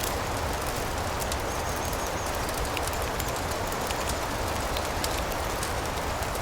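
Fireplace fire crackling with many small sharp pops over a steady rain-like hiss, and a faint high bird chirp or two near the middle.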